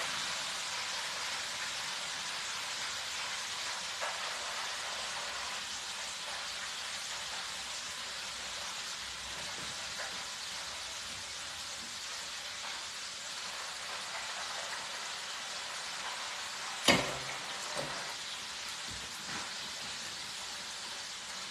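Hot oil in an electric deep fryer sizzling with a steady hiss. A single sharp knock comes about 17 seconds in, with a fainter one just after.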